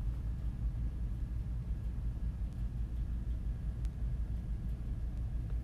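Steady low background rumble with no speech, like a room or traffic hum, with a faint click or two.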